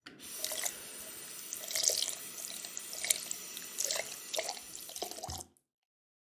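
Water running from a tap into a sink, with irregular splashes and drips; it cuts off suddenly about five and a half seconds in.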